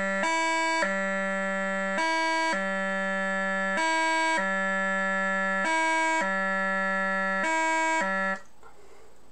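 Scottish bagpipe practice chanter holding a low G that is broken five times by a short higher E, about every second and three-quarters: the E gracenote played slowly as a practice exercise. The notes stop about a second before the end.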